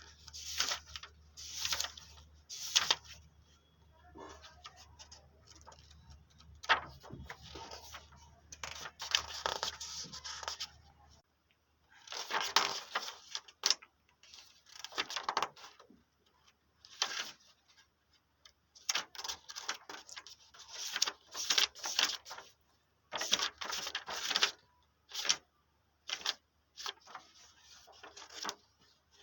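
Paper pages of a notebook being turned and rustled, short papery swishes coming every second or so with brief pauses between.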